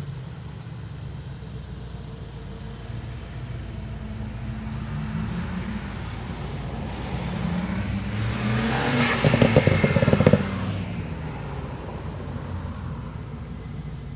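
A car drives past with a loud exhaust over steady traffic hum. Its engine note rises as it approaches, peaks with a throbbing rumble about nine to ten seconds in, then falls away.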